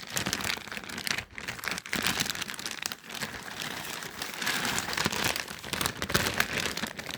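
Packaging crinkling and rustling continuously as a mailed package is handled and opened, with many small crackles and some tearing.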